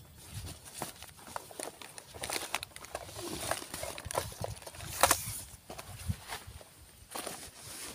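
Rustling of a nylon drawstring bag and the clatter of things inside it being rummaged through by hand: irregular clicks, scrapes and swishes, with a sharp knock about five seconds in as the loudest sound.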